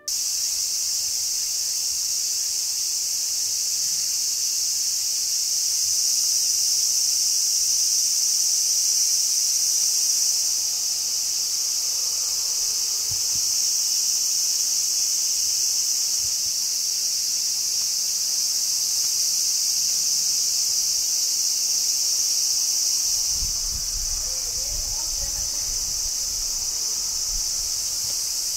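Summer cicada chorus: a dense, steady, high-pitched buzz without breaks. A faint low rumble joins it near the end.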